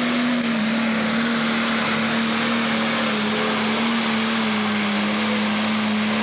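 Pro Stock pulling tractor's turbocharged diesel engine running flat out under load as it drags the weight sled, a loud steady drone whose pitch sags slightly as the pull goes on.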